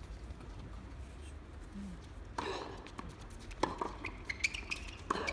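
Tennis rackets striking the ball in a quick rally: a string of sharp hits starting about two and a half seconds in, the last few coming roughly three-quarters of a second apart.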